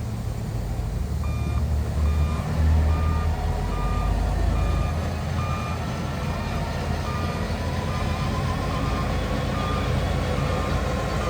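A heavy earthmoving machine's reversing alarm beeping at a steady pace, about once every second, over the low rumble of a diesel engine that swells for a few seconds about two seconds in.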